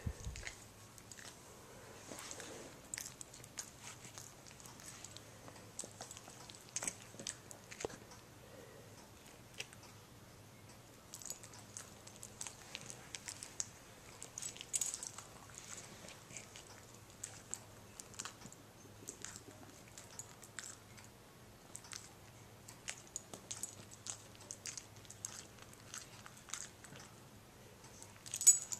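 Faint mouth noises from a dog: scattered soft clicks and smacks of lip-licking and swallowing. Near the end, a brief jingle of its metal collar tag.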